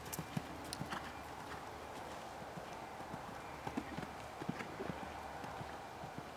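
Hoofbeats of a horse cantering over a sand arena: faint, irregular thuds with a few sharper knocks.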